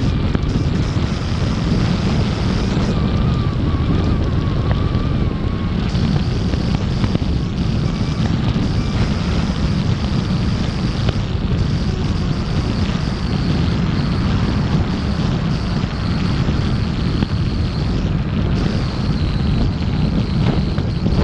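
A car driving, with steady road rumble and wind buffeting the microphone.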